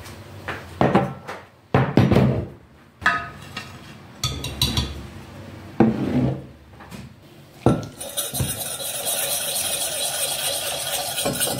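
A stainless steel pot knocking and clanking against a wooden table as it is handled. From about eight seconds in, water is poured from a glass jug into the pot with a steady rushing sound.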